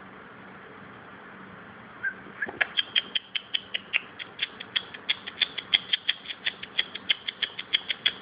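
A small bird giving a rapid, even series of short, sharp chip notes, about five a second, starting about two seconds in, the typical alarm calling of a bird trapped indoors.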